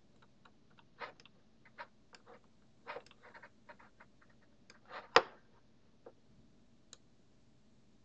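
Computer mouse clicking: irregular sharp clicks, some in quick clusters, with the loudest a little after five seconds in.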